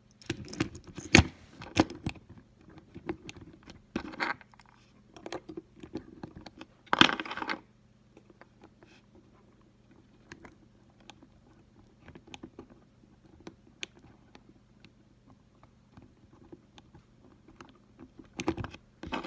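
Small plastic and metal parts of an Athearn HO scale model locomotive clicking and scraping as a truck and gearbox piece are fitted onto the chassis by hand. A quick run of sharp clicks comes first, with a louder scrape about seven seconds in, then only faint ticks until another scrape near the end.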